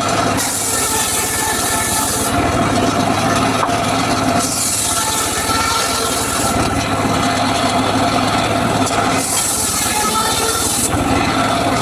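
Homemade circular saw running steadily and slicing teak wood: three cuts of about two seconds each, with the blade spinning freely between them.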